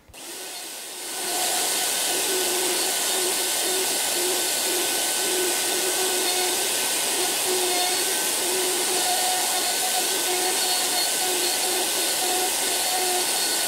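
Plunge router spinning up over the first second or so, then running steadily while routing a recess in plywood along a template.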